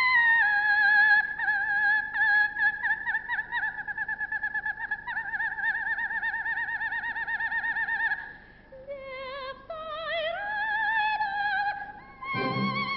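Coloratura soprano singing an unaccompanied cadenza in imitation of a nightingale: very high held notes with wide vibrato and fast trills. About nine seconds in the voice drops lower, then glides back up, and the orchestra comes back in near the end.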